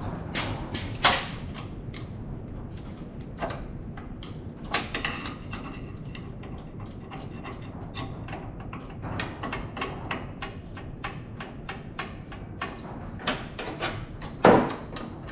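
Scattered light clicks and clanks of hand work on a VW Beetle's engine bay, wires and parts being unhooked and handled, with one louder knock near the end.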